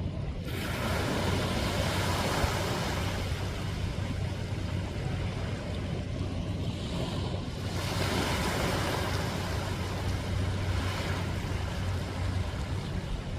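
Sea waves washing onto the shore in repeated swells, with wind rumbling on the microphone.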